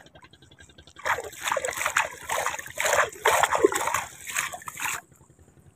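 Sea water splashing and sloshing as a landing net holding a freshly caught squid is swished through the shallows to rinse it. It starts about a second in and stops about five seconds in.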